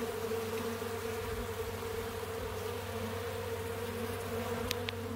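Honeybees buzzing in a steady, even hum from a colony disturbed on its exposed comb.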